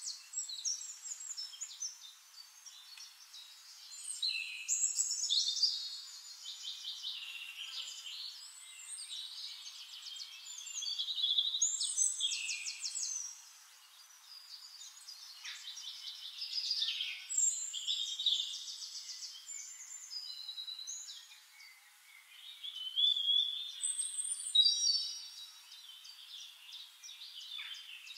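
Songbirds singing in a busy chorus: overlapping high chirps and rapid trills, growing louder and softer every few seconds.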